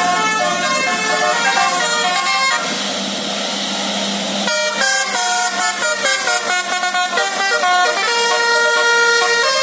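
Tour bus's basuri multi-tone air horn playing a telolet melody in quick stepped notes, with a stretch of hissing from about two and a half to four and a half seconds in.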